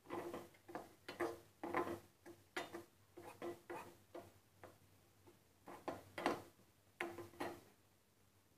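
Metal spatula scraping and tapping against a metal kadhai while stirring a thick moong dal filling, in short irregular strokes about twice a second, each with a faint metallic ring.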